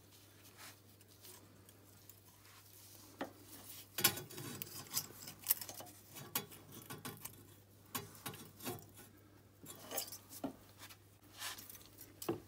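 Irregular metallic clicks and scrapes of a wrench and feeler gauge working the rocker arm adjuster screw of an air-cooled 250 cc single-cylinder ATV engine while the exhaust valve clearance is set. It starts about four seconds in.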